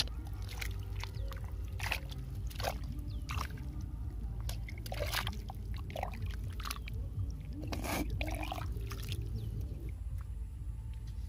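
A hand sloshing and splashing in the muddy water of an eel burrow: irregular wet splashes as the mud and water are stirred and scooped.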